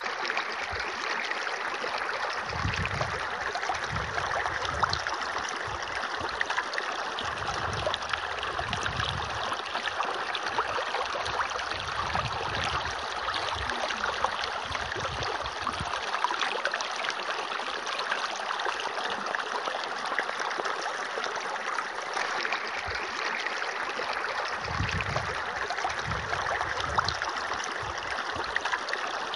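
Water streaming steadily from a small toy showerhead and splashing onto plastic toy animals in a shallow pool.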